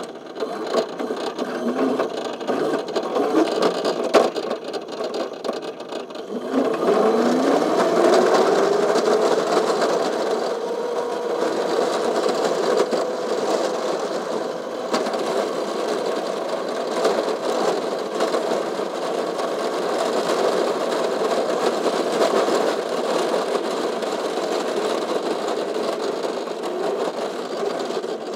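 Go-kart motor running under way: its pitch rises as it speeds up about six and a half seconds in, then holds steady as the kart cruises. A single sharp knock comes about four seconds in.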